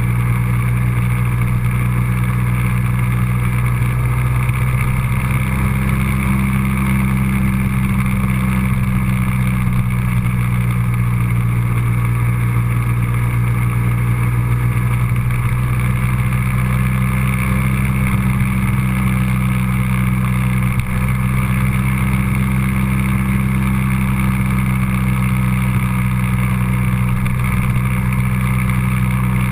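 Road vehicle's engine running with a steady drone at constant speed, its pitch rising slightly about six seconds in.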